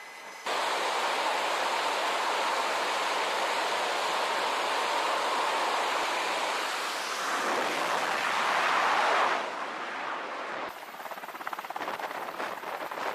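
F/A-18 Super Hornet's jet engines running at full power on the carrier catapult. The loud, steady noise comes in suddenly about half a second in, swells as the jet launches and falls away after about nine seconds. Near the end a helicopter's rotor beats with a fast, even chop.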